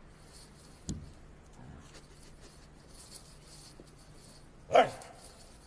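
A dog barks once, short and loud, near the end, after a faint click about a second in.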